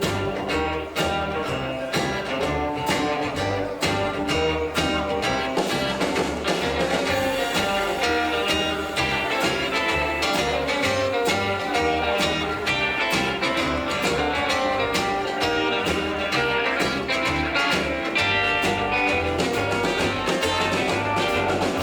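Rockabilly band playing an instrumental break: a guitar lead over a steady bass line and regular drum beats, with no singing.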